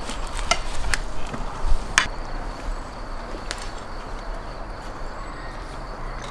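A few sharp clicks of a fork and cutlery against plates at a meal table, over a steady background hiss.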